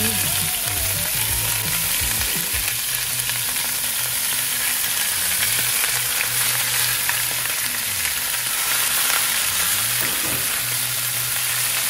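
Beef short ribs sizzling steadily as they sear hard in a preheated Weber Dutch oven on a gas grill.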